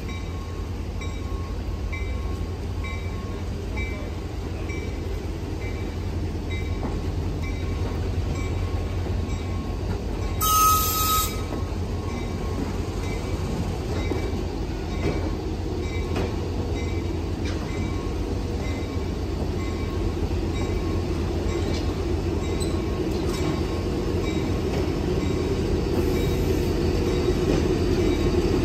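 Passenger coaches rolling slowly past on the station track: a steady rumble of wheels on rail that grows louder as the cars come close. About ten seconds in there is a brief, sharp, high-pitched sound.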